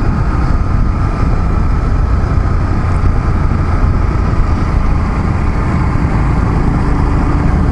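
Honda motorcycle under way on the road: the engine running with a steady low rumble of wind on the microphone.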